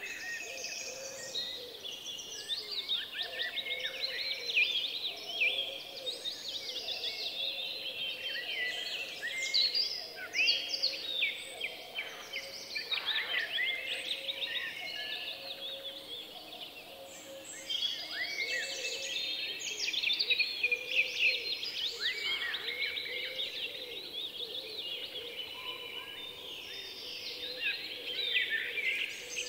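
A continuous chorus of many small songbirds chirping and trilling in quick, overlapping phrases, over a faint steady hum.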